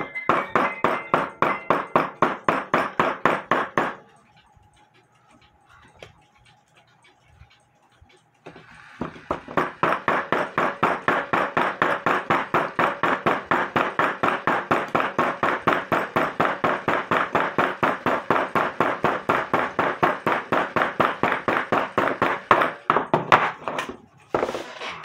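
Small hammer tapping a piece of steel wire against a wooden block in quick, even blows, about four or five a second, knocking out the high spots to straighten the wire. The tapping stops for about four seconds, then goes on steadily, with a few harder blows near the end.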